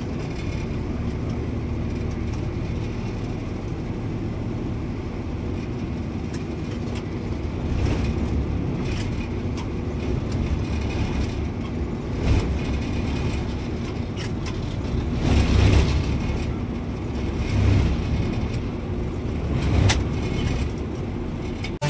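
Plasser & Theurer combined track tamping machine running: a steady low diesel drone, with a number of clunks and short louder spells from about eight seconds in.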